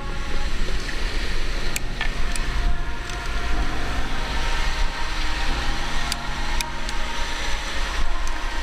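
Wind buffeting the microphone in a steady low rumble, with a few sharp clicks of climbing hardware (carabiners on a quickdraw and sling) being handled.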